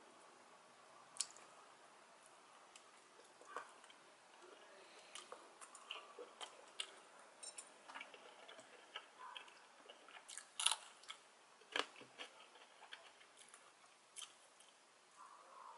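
Faint eating sounds: chewing with crisp crunches from biting a raw green chili pepper, and small sharp clicks scattered through, the loudest a little after the middle.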